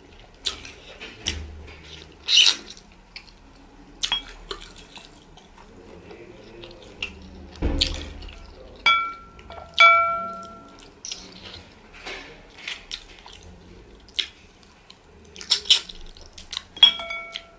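Close-up wet eating sounds: lip smacks, sucking and chewing as meat is pulled off a bone by hand, and fingers squishing soup-soaked fufu in the bowl. The sounds come as many short sharp clicks, with a few brief ringing tones near the middle and end.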